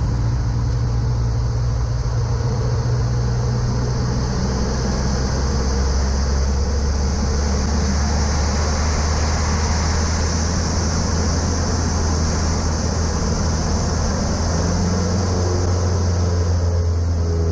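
A Cessna Aerobat's four-cylinder piston engine drones steadily, heard inside the cabin, with a steady high hiss of airflow that is strongest around the middle. The aircraft is diving to build speed for a loop.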